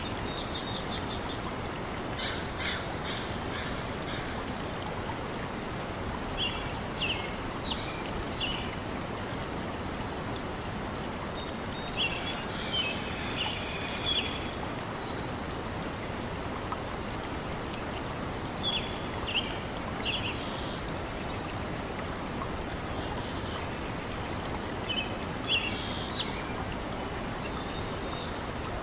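Steady running water, like a stream, with small birds calling in short high chirping phrases every few seconds.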